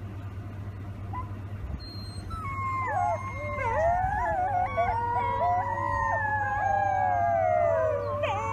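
Several wolf pups howling together in a chorus of many overlapping, wavering howls that starts about two and a half seconds in and grows louder. A steady low hum runs underneath.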